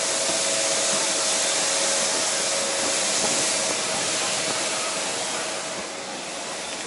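Steady rushing hiss of blown air with a faint steady whine under it, from machinery running by a parked airliner; it eases slightly near the end.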